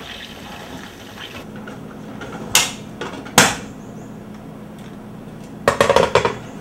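Metal cookware knocking: two sharp knocks a little under a second apart, then a quick rattling clatter near the end.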